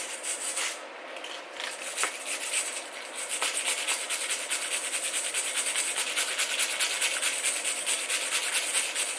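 Fresh weld on a broken bolt in an engine block being scrubbed with a wire brush: a steady, rapid scratching of metal bristles on steel, with brief pauses about a second in and near three seconds in.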